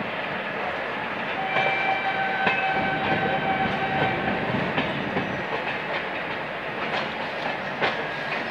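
Passenger train with LHB coaches running through a yard, heard from on board: steady rolling noise, with irregular clicks as the wheels cross rail joints and points. For about three seconds near the start, a steady high tone sounds over it.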